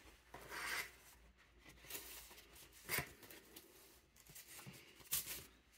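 Sheets of heavy hot-pressed watercolour paper being handled and shuffled: faint rustles, with a light tap about three seconds in.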